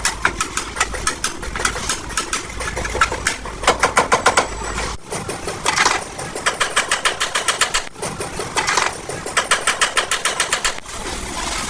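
Bursts of rapid, evenly spaced mechanical tapping, about six to ten strokes a second, from a workshop tool working on vehicle body metal. The bursts stop and start abruptly several times.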